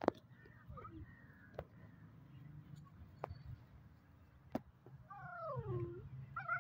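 Puppies play-fighting, one giving a drawn-out whine that falls in pitch about five seconds in, after a couple of shorter squeals earlier. A few sharp clicks come between the calls.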